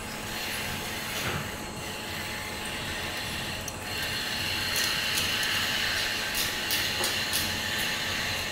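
Steady railway-station background noise: a hiss that grows louder about halfway through, with a few faint clicks in the second half.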